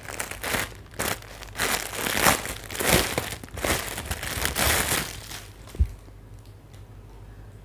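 Plastic bag crinkling and rustling in irregular bursts as a spin mop's spare refill head is handled and pulled out of it, settling after about five seconds; a short low thump near the end.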